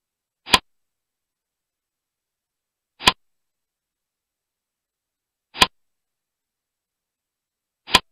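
Four short, sharp reveal sound effects from a digital textbook, about two and a half seconds apart, with complete silence between them. Each one marks an answer appearing on the page.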